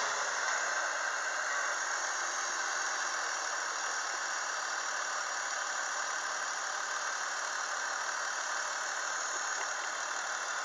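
BMW M54 3.0-litre inline-six petrol engine in an X5 E53 idling steadily, heard from the open engine bay. It settles to an even idle in the first second or two.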